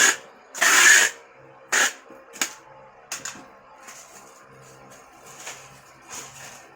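MMA (stick) welding arc from an inverter welder, struck in short crackling, hissing bursts about every half second to a second, the later bursts shorter and weaker.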